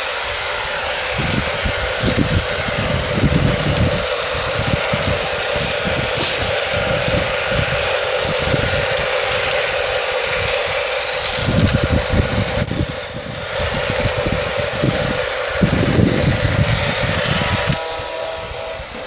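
A LionChief RS3 model diesel locomotive runs steadily on its garden railway track with a continuous whirring hum, while irregular gusts of wind buffet the microphone.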